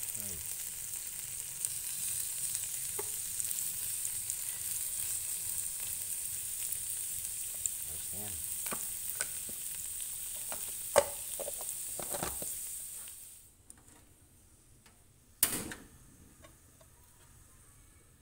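Butter and shrimp sizzling on a hot cast-iron sizzling plate, with a few light clicks as the shrimp are pushed into place. The sizzle stops abruptly a little over two thirds in, and a single sharp knock follows.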